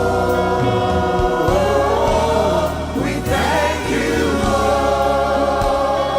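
Gospel music with a choir singing long held notes over a steady bass.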